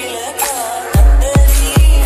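Electronic music track with a melodic line and, in the second half, three heavy deep bass hits that each drop in pitch.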